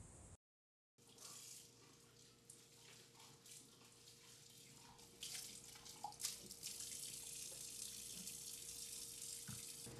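Kitchen tap running into a sink: a faint hiss of water that gets louder about five seconds in, over a steady hum.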